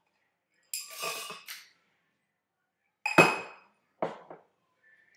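Hard kitchenware clinking and clattering: a ringing clatter about a second in, a louder clank with ringing just after three seconds, then two quick clinks.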